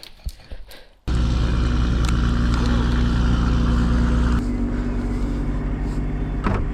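After a second of quiet with a few faint clicks, a Chevrolet Camaro's engine cuts in suddenly, running steadily under way. About four seconds in it drops to a lower, quieter note, as on a gear change or lifting off.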